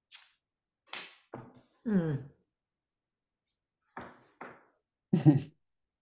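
Tarot cards handled on a wooden table: a few short taps and slides as one card is drawn from the deck and laid down. A short vocal sound falling in pitch comes about two seconds in, and a brief voiced sound comes near the end. The sound drops to dead silence between these, as on a noise-suppressed video call.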